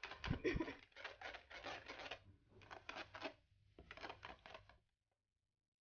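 Wire balloon whisk beating thin kue cubit batter in a plastic bowl: quick, wet scraping strokes in three runs with short pauses between them, and a couple of dull knocks near the start. The whisking stops about five seconds in.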